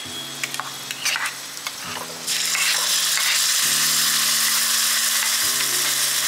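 Hot tempering oil with mustard seeds, dry red chillies, garlic and curry leaves sizzling in a kadai, with a few light clicks; a little over two seconds in the sizzle jumps to a loud, steady hiss as the wet ground chilli-garlic paste goes into the hot oil.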